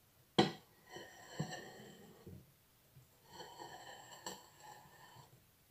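Quiet room: a single light click about half a second in and a fainter tick later, from hands handling the ceramic soup bowl on its plate, with faint soft noise between.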